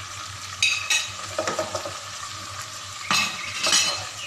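Spice masala and potato pieces sizzling in hot oil in a nonstick pot while a ladle stirs and scrapes through them, with louder scraping strokes about a second in and again after about three seconds. The spices are being sautéed down (kosha).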